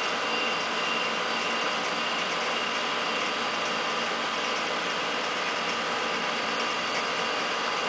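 Crosfield 6250 Magnascan drum scanner running mid-scan: its spinning drum and motors make a steady mechanical whir with several steady whining tones.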